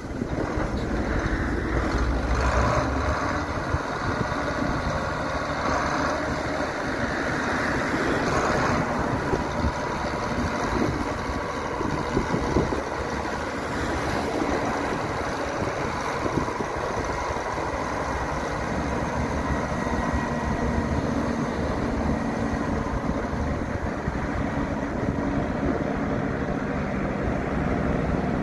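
John Deere 8760 articulated tractor's six-cylinder diesel engine running steadily as the tractor drives past and away.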